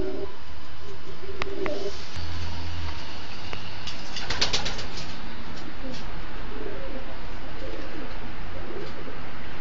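Racing pigeons cooing in a loft: repeated low, throaty coos from several birds. Near the middle there is a brief burst of rustling.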